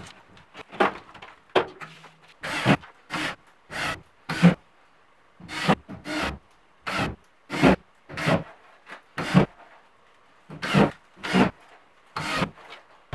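Short scraping, rasping strokes of a tool working on a plasterboard panel, coming in runs of two to four with brief pauses between.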